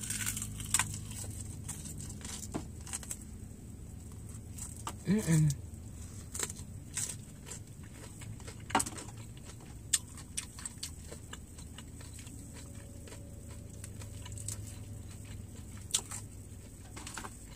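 Close-up chewing of crispy fried chicken wings: crunching and wet lip smacking, heard as many short sharp crackles and smacks. A brief 'mm' hum about five seconds in.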